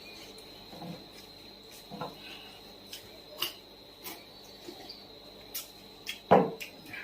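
Eating sounds from puchka, the crisp hollow shells being bitten and chewed: scattered short crunches and clicks, with the loudest crunch about six seconds in. A steady high-pitched tone runs underneath.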